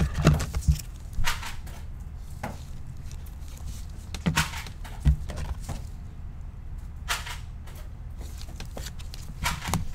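Trading cards and packs being handled on a table: scattered brief swishes, taps and knocks, about eight in all, over a steady low hum.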